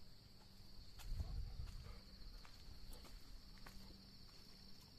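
Steady high-pitched, finely pulsing chirring of night insects, with faint scattered ticks of footsteps on the road. A brief low rumble comes about a second in.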